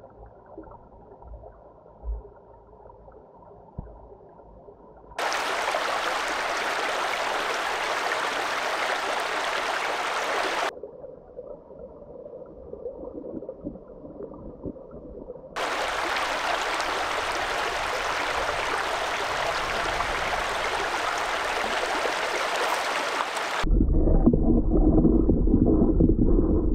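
Brook water heard through a submerged camera: muffled, dull gurgling that switches abruptly to a loud, even rushing of the stream twice, then turns into a louder, deep, muffled churning near the end.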